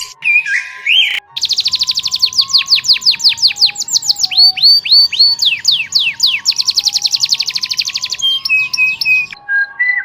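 A songbird singing a long, rapid trill of sharply down-slurred notes, about seven a second, with a brief break about four seconds in and a few short whistled notes near the start and end. Soft background music plays underneath.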